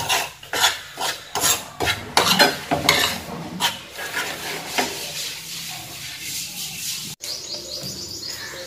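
A spoon scraping and stirring a dry-roasted flour and semolina mix in a frying pan, off the heat, in short strokes about two to three a second. The strokes grow softer and sparser after about four seconds.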